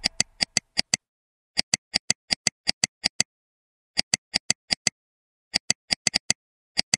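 A string of short, sharp, identical clicks in uneven runs of about five or six a second, with dead silence between them.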